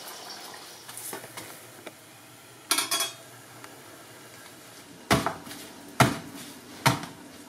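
Freshly cooked parotta being slapped and crushed by hand on a granite counter to open up its layers: sharp slaps about a second apart in the second half, after a brief clatter of kitchen metalware about three seconds in.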